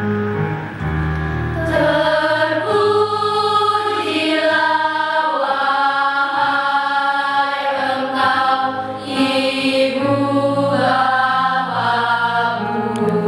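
A choir of schoolchildren singing slow, held notes together, with low sustained notes underneath at the start and again near the end.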